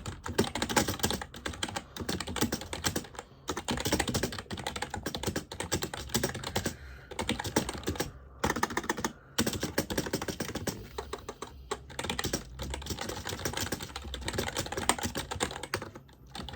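Fast, continuous typing on a compact Keji membrane gaming keyboard, rapid soft key presses with a few short pauses, about three seconds in and around eight to nine seconds in.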